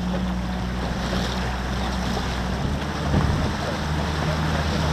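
Outboard motor of an inflatable boat running steadily at low speed, with water rushing along the hull and wind on the microphone.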